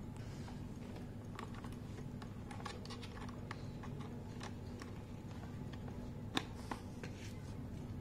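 Small clicks and scrapes of a USB cable being handled and plugged into a plastic car humidifier's USB charging port, with two sharper clicks about six and a half seconds in, over a steady low hum.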